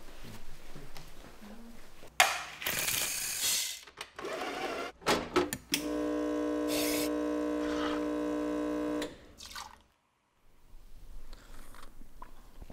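Espresso machine pulling shots: a loud rushing noise about two seconds in and a few clicks and knocks, then the pump's steady hum for about three seconds, which stops abruptly.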